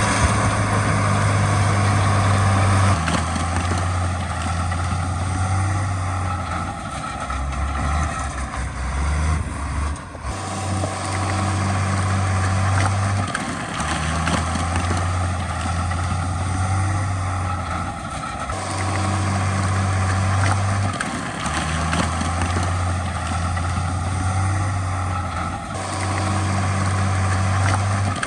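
Heavy diesel earthmoving machinery running. The low drone shifts in steps every few seconds.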